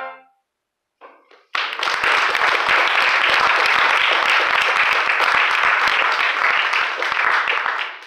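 The brass ensemble's final chord dies away, then after about a second of quiet a small audience applauds steadily for about six seconds, fading near the end.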